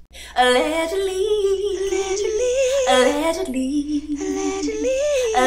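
A woman singing a wordless tune in long held notes, sliding up and down between pitches with a slight waver.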